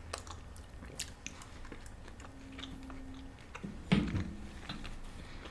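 Close-miked chewing and mouth sounds of people eating, with scattered small clicks and a louder brief mouth sound about four seconds in.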